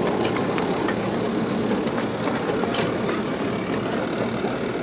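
Freight cars of a 1.5-inch scale live steam train rolling past on 7.5-inch gauge track: a steady rumble of wheels on rail with a few light clicks.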